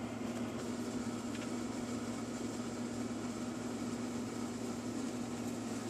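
Steady room tone: a low electrical hum with a faint even hiss and no distinct events.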